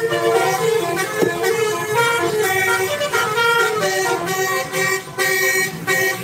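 Bus's telolet basuri musical horn playing a melody of held notes that change pitch in steps.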